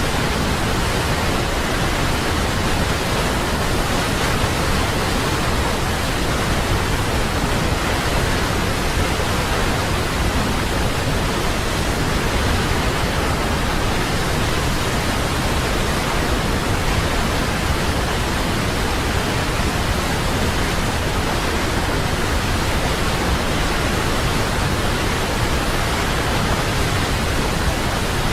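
Waterfall: a steady, even rush of falling water, unchanging in level, with no other sounds.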